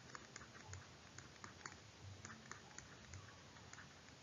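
Faint, irregular clicks of a stylus tapping on a pen tablet during handwriting, over near silence.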